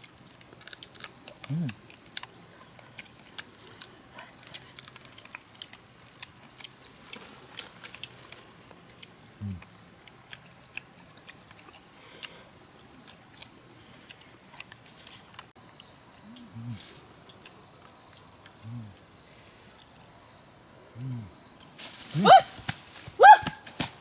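A man's short, low grunts every few seconds, with small crackles and clicks and a steady high-pitched whine behind them. Near the end come louder, higher, rising-and-falling calls.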